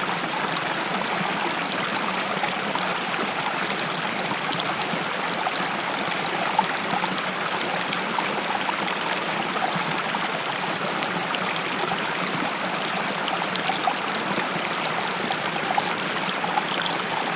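River water flowing steadily over rocks, a continuous rushing babble with small gurgles and splashes throughout.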